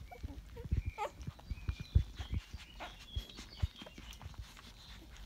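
Nursing 18-day-old Rottweiler puppies giving short high squeaks and thin whines as they jostle at the teats, over soft low thumps, the loudest about two seconds in.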